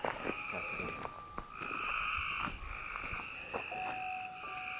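Night chorus of crickets and other insects: steady high trilling with a faster pulsing chirp above it, about five pulses a second, and a lower steady trill joining near the end. Scattered crunching footsteps on gravel.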